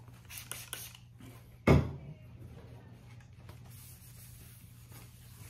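Cloth rubbing and wiping along a tennis racquet frame, with soft rustles and small clicks, and one sharp knock just under two seconds in.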